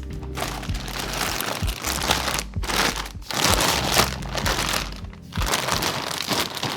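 Plastic packaging crinkling as it is handled and unwrapped, in three long stretches with short breaks. Background music plays underneath.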